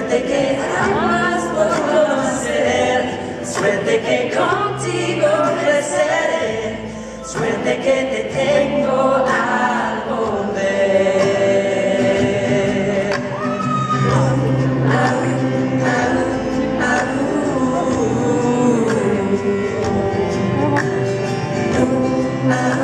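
Live acoustic pop band: several voices singing together in harmony over acoustic guitar, cello and upright bass.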